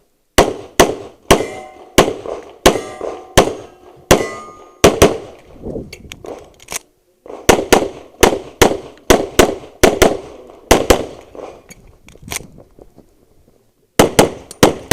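Handgun fired in rapid strings of shots, two to three a second with short pauses between strings, during a timed course of fire. After some hits a steel target rings.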